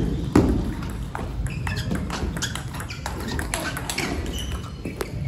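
Table tennis rally: the celluloid/plastic ball clicking off rubber-faced paddles and the table top in quick, uneven succession, with the loudest, heaviest hit about half a second in.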